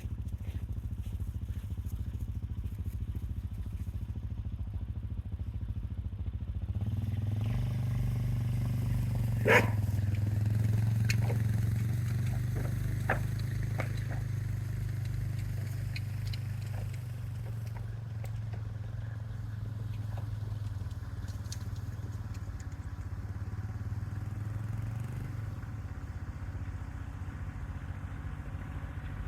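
A motor vehicle's engine runs steadily with a low hum. It picks up and grows louder about seven seconds in, then settles again. A sharp click or knock comes about nine seconds in.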